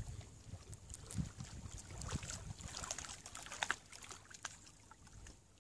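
Small waves lapping and splashing against a stony lake shore, a run of irregular little splashes and crackles that thins out near the end, with wind rumbling on the microphone at the start.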